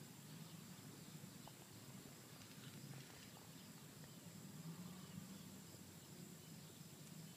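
Near silence: faint background with a low hum and a thin steady high whine, plus a few faint ticks.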